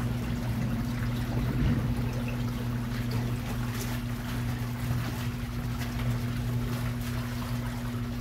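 Small top-loading washing machine humming steadily, with water sloshing and splashing in the tub as a garment is dunked by hand.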